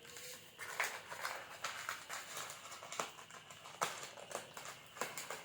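A run of irregular light taps and scuffs: a kitten's paws scrabbling on the floor as it chases its own tail.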